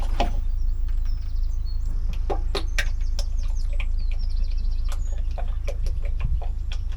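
Engine oil glugging as it is poured from a 5-litre drum into a narrowboat's Yanmar diesel engine, giving irregular short knocks and gurgles over a steady low rumble. Small birds chirp now and then in short runs of high notes.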